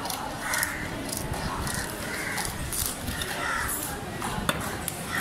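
Crows cawing over and over, a short caw every half second to a second, with short sharp scraping from a knife cutting through fish on a wooden block.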